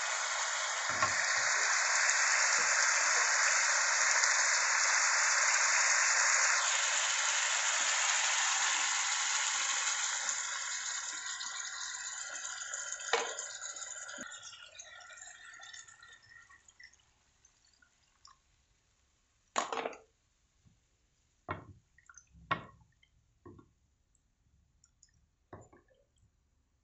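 A pan of spiced tuna roe in curry sauce sizzling and bubbling over a gas flame; the sizzle fades away over the first half. After that come several sharp knocks of a wooden spatula against the pan.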